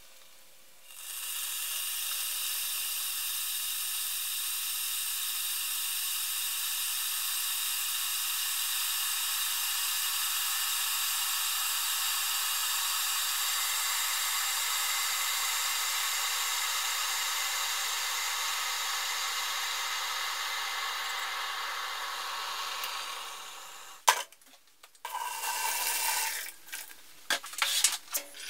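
Stainless steel electric kettle heating water: a steady rushing hiss starts a second or so in and dies away about 23 seconds in as the water comes to the boil, followed by a sharp click as the kettle switches itself off. Hot water then splashes into a bucket near the end.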